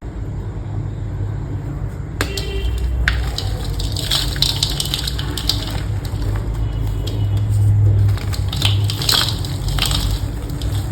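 Blocks of gym chalk being crushed and crumbled, giving dense crisp crunching and crackling that starts about two seconds in, over a steady low rumble.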